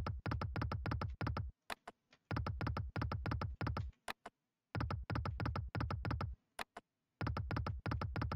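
Online video slot machine's reel-spin sound effects: four runs of rapid electronic ticking, each about a second and a half long, one for each spin, with short pauses between.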